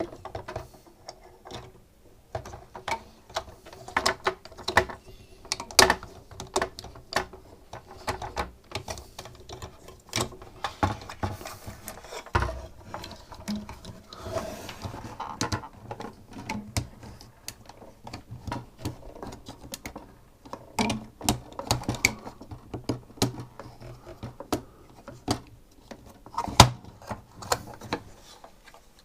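Irregular clicks, knocks and rattles of SodaStream parts being handled and fitted together by hand.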